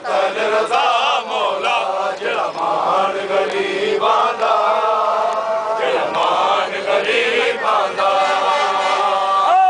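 Group of men chanting a Shia mourning lament (noha) together, with long held notes.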